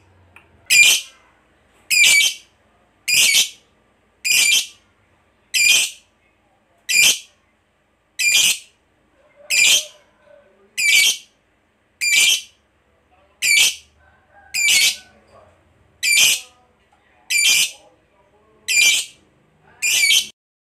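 A lovebird calling in a steady rhythm: a short, high-pitched call about every 1.3 seconds, sixteen times over.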